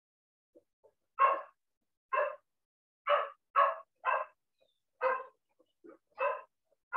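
A dog barking repeatedly, about eight short barks starting about a second in, roughly one every half-second to second.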